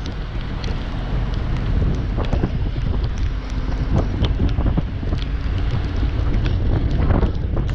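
Heavy logging machine running steadily, with wind buffeting the microphone and scattered sharp cracks and knocks throughout.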